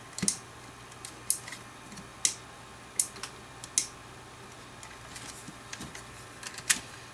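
Irregular sharp clicks and taps, roughly one a second, from small plastic parts being handled, as the radar detector and its newly wired power cord are fiddled with after it fails to power up, over a faint steady low hum.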